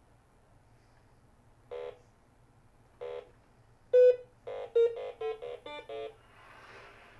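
Electronic keypad beeps from a 1979 Milton Bradley Big Trak as its keys are pressed: single beeps about two and three seconds in, a louder one about four seconds in, then a quick run of about six beeps at changing pitches. A faint rushing noise follows near the end.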